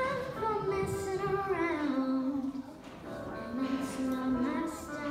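A single singing voice carries a slow melody of long held notes that slide from one pitch to the next, with a short break about two and a half seconds in before it carries on.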